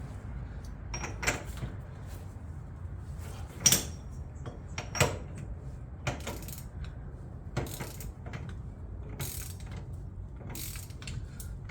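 Half-inch-drive ratcheting torque wrench tightening a front wheel hub's axle nut: irregular ratchet clicks, with a few sharper clacks about a second, three and a half seconds and five seconds in.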